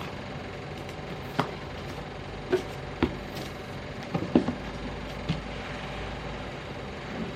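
Handling noises: about six short clicks and knocks, spaced irregularly, as packaging or a laptop is handled, over a steady low hum.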